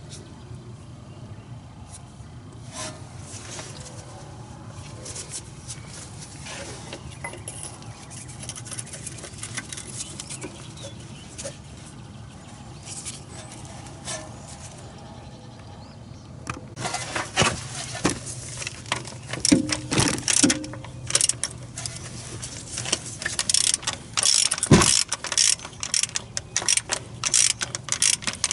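Metal tool clicks and clinks from a ratchet and deep-well socket working on the oil pressure switch, few and faint at first, then frequent and sharp through the last ten seconds or so, over a steady low hum.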